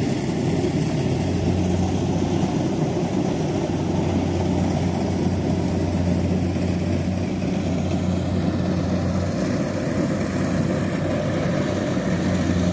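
Combine harvester's diesel engine running steadily while it cuts rice, a low, even hum.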